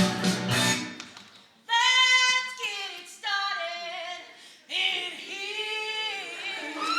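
Band music trails off in the first second, then a high voice sings alone in three short, wavering phrases with no accompaniment.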